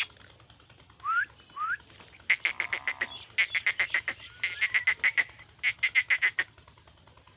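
A bird calling: two short rising chirps, then four quick runs of rapid, repeated notes about a second each.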